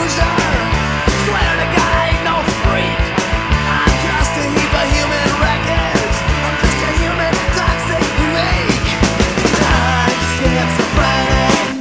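Rock music with a steady drum beat and a stepping bass line.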